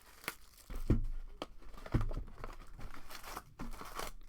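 Foil wrappers of trading-card packs crinkling and tearing as packs are handled and opened, with a few sharp knocks on the table, the loudest about one and two seconds in.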